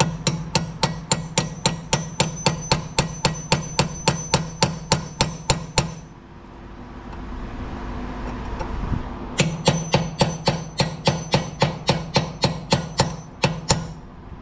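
Hammer striking a bolt extractor socket to drive it onto a rounded-off bolt on a car's front wheel hub. Quick, even metal-on-metal blows, about three a second, each with a high ringing note. They come in two runs: one of about six seconds, then after a pause of about three seconds, one of about four and a half seconds.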